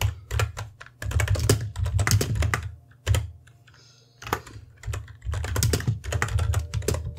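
Computer keyboard typing in quick runs of keystrokes, with a pause of about a second near the middle.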